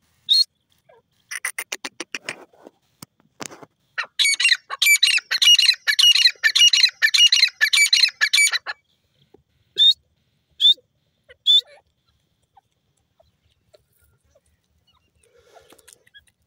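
Grey francolin (teetar) calling. It gives a run of rapid clicking notes, then about four seconds of loud, fast, repeated ringing calls, then three single short calls about a second apart.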